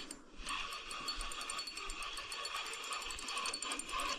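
Spinning reel being cranked while playing a hooked fish, a fast run of fine mechanical clicks, with crickets chirping steadily underneath.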